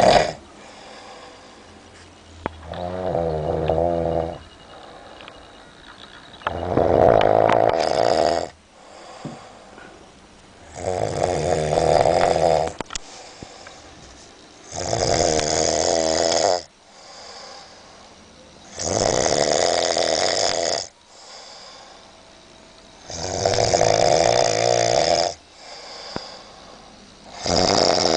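A person snoring, one long snore of about two seconds roughly every four seconds, seven in all, with quieter breathing between them.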